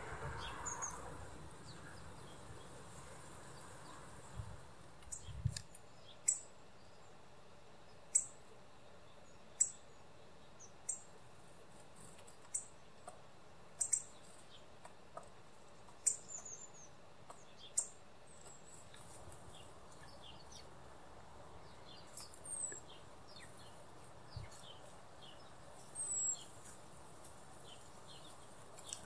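Songbird calls: short, sharp, high chirps every second or two, some falling in pitch, with fainter thin twittering between them.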